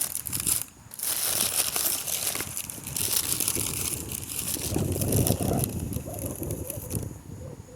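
Crinkling and rustling of a paper takeout bag being handled, with dense crackling from about a second in and a heavier rustle around the middle.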